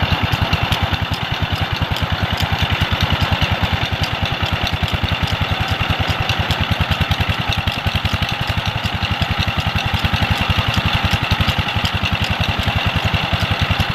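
Petter diesel engine powering a tube well, running steadily with an even, rapid beat.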